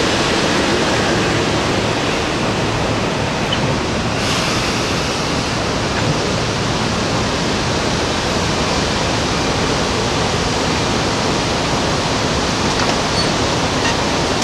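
Steady rushing noise from a Metro-North M4 electric multiple-unit commuter train as it slows to a stop alongside the platform, with a brief brighter hiss about four seconds in.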